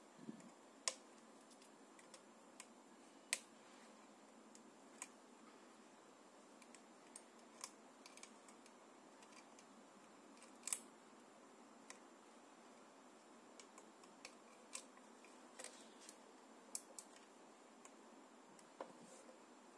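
Scattered sharp plastic clicks and taps from fingers handling a car DVD-GPS head unit and working at its SD card slot, irregular and a few seconds apart, the loudest about a second in, at about three seconds and near eleven seconds.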